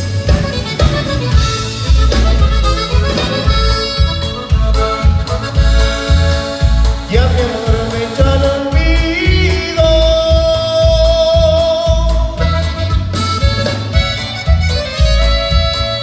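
Conjunto band playing live: a button accordion leads over a steady bass and drum beat, with guitar and saxophone.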